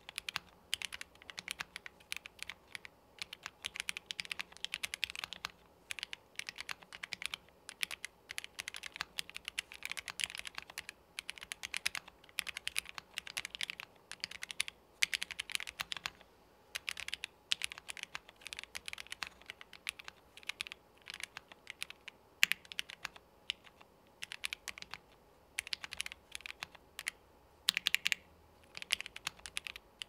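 Typing on a KBDfans Odin mechanical keyboard fitted with a polycarbonate plate: fast, continuous keystrokes in runs of a few seconds, broken by short pauses, with a few louder key strikes standing out.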